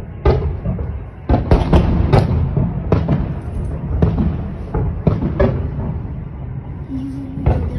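Fireworks salute shells bursting: about a dozen irregularly spaced bangs, some in quick pairs, over a steady low rumble.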